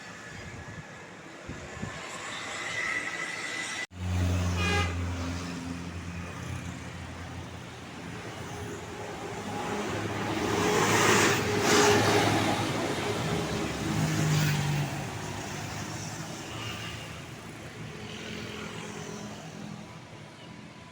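Road traffic passing close by: a heavy vehicle's engine rumbles after a cut, then a large vehicle, likely a bus, goes past with a louder swell of engine and tyre noise about halfway through.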